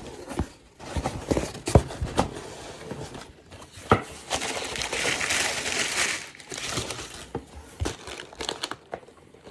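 A mailed package being torn open and its packaging handled: crinkling and tearing with scattered clicks and knocks, and a longer stretch of rustling about four to six seconds in.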